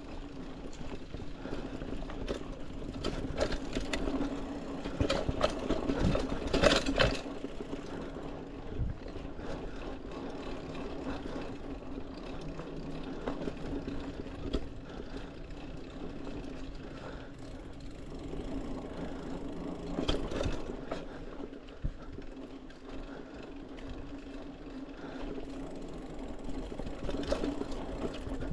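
Mountain bike rolling along a dirt singletrack: tyres running over the ground with a steady hum, and the bike rattling and clattering over bumps, loudest about six to seven seconds in.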